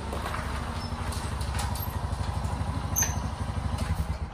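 Small motor scooter engine idling with an even, fast putter as it pulls up and stops, cutting off near the end. A short sharp click about three seconds in.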